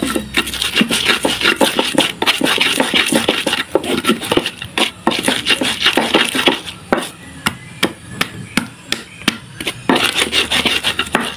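Stone pestle (ulekan) grinding and pounding garlic, shallots and chillies into spice paste in a clay cobek mortar: fast knocks mixed with gritty rubbing, and a stretch of separate, sharper taps midway.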